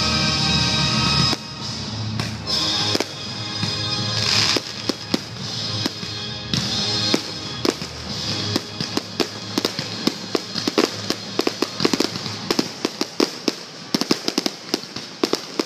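Music, loudest in the first second or so, gives way to an aerial fireworks finale. Scattered shell bursts build into a rapid, dense volley of bangs and crackles from about eight seconds in.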